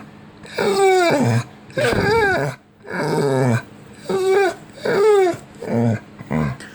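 A dog making a run of odd growl-like vocal noises: about seven short pitched calls in a row, each sliding up and down in pitch.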